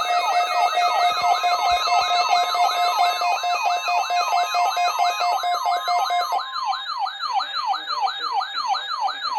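Electronic siren sound: a synthesized wail of fast falling pitch sweeps, about three a second, over a steady tone that drops out about six seconds in. It starts and stops abruptly.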